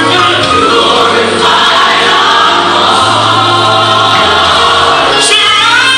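Gospel song with a choir singing over a steady bass line and band backing; near the end a voice sweeps up and back down in a run.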